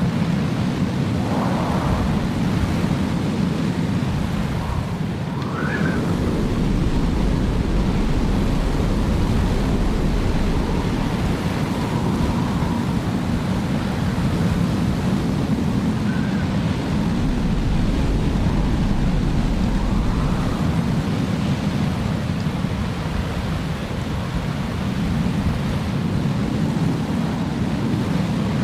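Blizzard wind blowing hard and steadily, a dense low rush with a few faint higher howls of gusts that rise and fall now and then.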